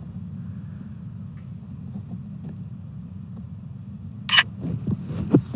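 A camera shutter sound, a single short click about four seconds in, as a photo is taken, over a steady low rumble.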